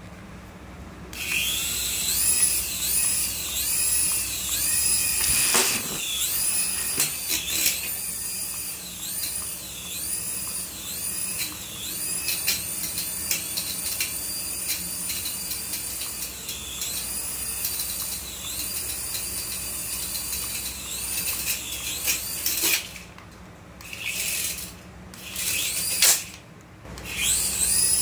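Small toy RC helicopter's electric rotor motors running, a high whine that wavers up and down in pitch. It starts about a second in, drops out briefly near the end with a couple of short bursts, then picks up again.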